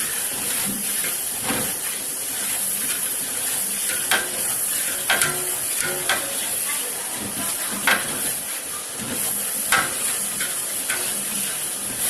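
Food sizzling as it fries in a cooking pot, with a ladle stirring through it and knocking or scraping against the pot every second or two.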